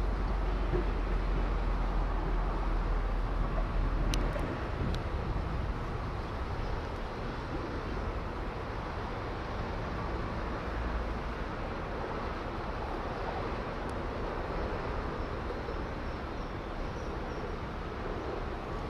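Steady outdoor background noise with a low rumble, heavier for the first four and a half seconds, and a couple of faint clicks about four and five seconds in.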